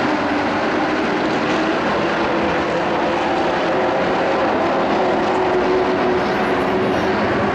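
Engines of a pack of dirt-track race trucks running together under racing throttle, a steady, loud blended engine noise.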